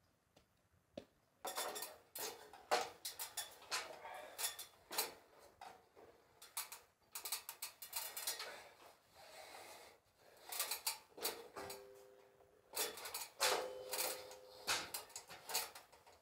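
Irregular metallic clanking and clattering, from metal knocking on an aluminium ladder, starting about a second and a half in. Twice in the second half a short ringing tone sounds out.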